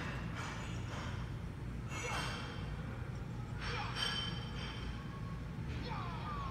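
Bo staff kata: short airy whooshes about every two seconds, over a steady low hum.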